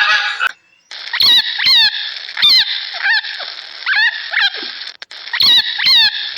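An animal calling over and over: short calls that fall in pitch, often in quick pairs, over a steady background chorus.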